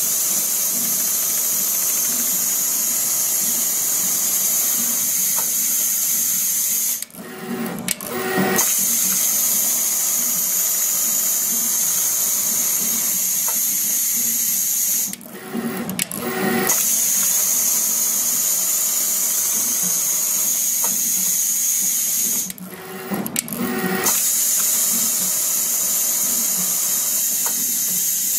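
Richpeace automatic pattern sewing machine running as it stitches a shoe upper through a template. The steady high-pitched mechanical whir drops out three times, about every eight seconds, for a second or so, and a lower pulsing tone takes its place.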